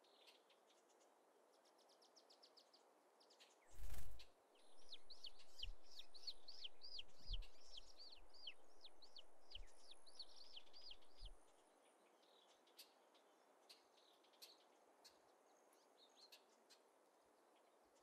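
A songbird singing a long run of quickly repeated, arched chirps, about three a second for some six seconds. Just before the song there is a sudden low thump, the loudest sound here. Afterwards only a few faint scattered chirps and ticks remain.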